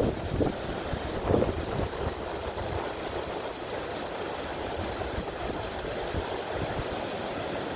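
Steady rushing roar of the Nanayama Kannon waterfall, with gusts of wind buffeting the microphone in the first couple of seconds.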